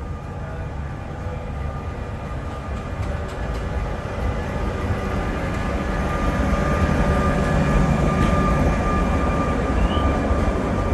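Electric tram of the Sóller tramway running on its rails, a low rumble with a steady high whine, growing louder as it approaches.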